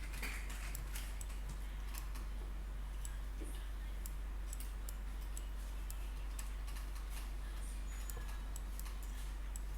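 Faint, irregular clicks, several a second, over a steady low hum.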